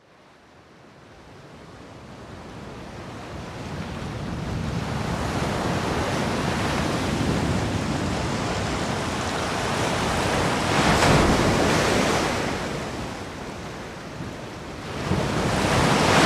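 Sea surf: a rushing of waves that fades in, swells and breaks loudest about eleven seconds in, then surges again and cuts off abruptly at the end.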